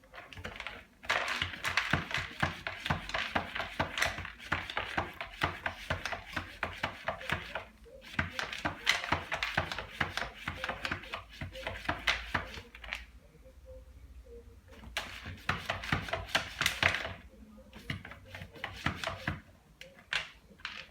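Cat scratching and digging in cat litter with its paws: fast gritty scratching in bouts of a few seconds, with pauses between them and a short last burst near the end.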